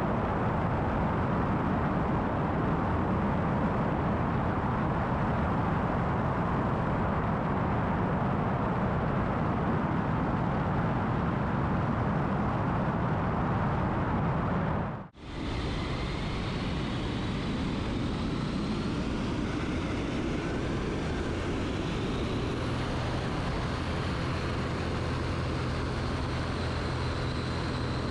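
Ultralight aircraft engine and propeller running steadily in flight, under a dense rush of wind over the microphone. About halfway through the sound cuts out for a moment; afterwards a steadier low engine hum comes through the wind.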